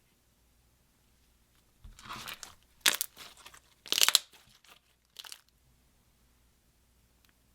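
Dry crunching and crackling in a few short bursts from about two seconds in, loudest around three and four seconds, then quiet: makeup being crushed and handled for mixing into slime.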